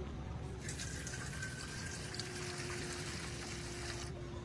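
Water pouring from a steel bucket into a large metal pan in a steady stream, starting about half a second in and stopping shortly before the end.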